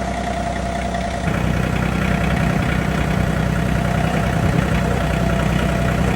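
A steady engine-like hum, running evenly and getting a little louder about a second in.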